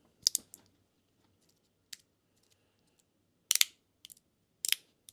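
Magnetic fidget slider being slid back and forth, its pieces snapping together in about six sharp, irregularly spaced clicks, the loudest about three and a half seconds in.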